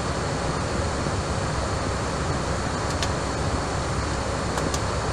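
Steady hiss and rumble of an air traffic control radio recording between transmissions, with a few faint clicks about three seconds in and near the end.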